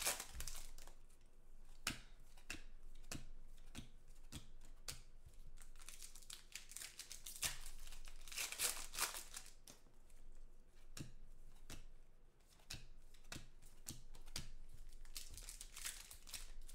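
Foil trading-card pack wrappers being torn open and crumpled by hand: irregular bursts of crinkling and tearing with sharp crackles.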